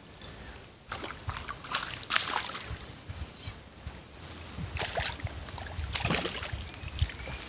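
Hooked snakehead thrashing and splashing at the water's surface as it is drawn to the bank, in several irregular bursts of sloshing.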